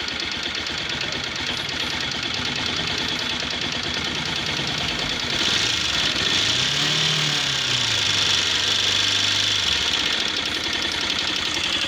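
Bajaj Pulsar NS200 single-cylinder engine idling with a fast, steady metallic ticking: tappet noise, the sign of loose valve clearance that needs adjusting. About halfway through the engine speed rises briefly, then settles back.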